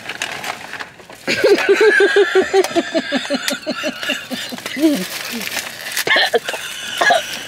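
Two women laughing hard: a long run of rapid 'ha-ha-ha' pulses starting about a second in, sinking in pitch as it trails off, followed by shorter bursts of laughter near the end.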